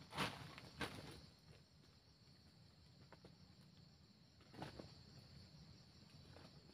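Faint, steady high insect buzz, with a few brief rustles as a plastic sack and loose oil palm fruitlets are handled: two just after the start and another a little past four seconds in.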